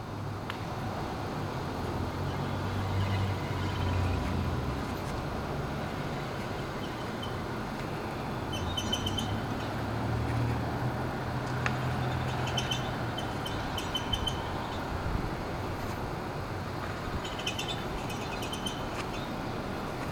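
High-pitched squeaking from the passenger-side rear brake of a Subaru WRX wagon, coming in short clusters of chirps every few seconds over a low rumble from the car. The owner thinks it almost sounds like a spring in the rear brake or e-brake is caught or even broken.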